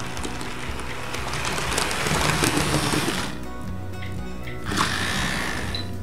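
Model train running over a track switch (turnout), with wheels ticking over the rail joints, over background music.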